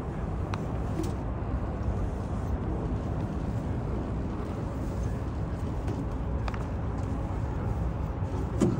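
Steady low outdoor rumble, much of it wind on the microphone, with faint distant speech and a few light clicks.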